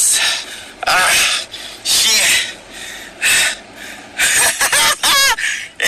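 A man's voice right up against a phone's microphone, loud breathy bursts about once a second with snatches of voiced sound but no clear words.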